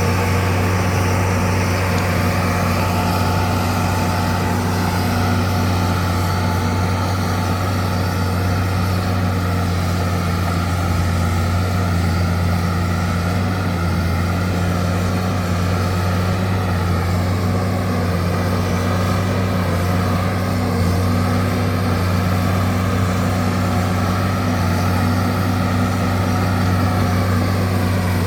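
Bulldozer engine running steadily at an even pitch.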